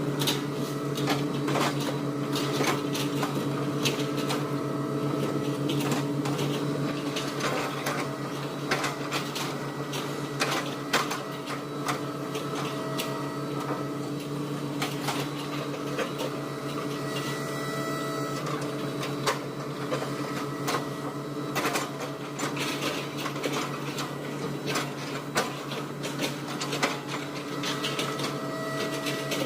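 Hitachi excavator's diesel engine running at a steady drone, with frequent irregular sharp knocks and cracks as it chips oil palm trunks.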